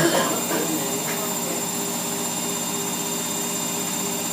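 Whirlpool AWOD 5726 front-loading washing machine spinning a load of towels, a steady machine whine and hum.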